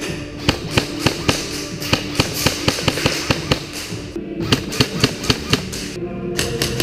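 Airsoft gunfire in an exchange: an irregular string of sharp snaps and cracks, several a second, from shots and BBs striking cover, with a brief lull about four seconds in. Steady background music plays underneath.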